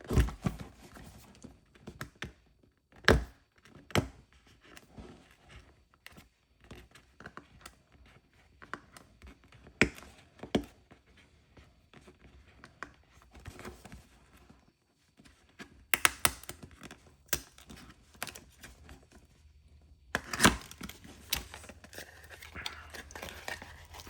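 A cardboard product box being opened and its packaging handled: scattered knocks, taps and sharp clicks, with stretches of paper and plastic rustling and crinkling.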